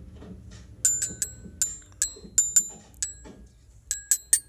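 About a dozen sharp metallic clicks in an uneven quick run, starting about a second in. Each click rings briefly like a small bell, over faint background music.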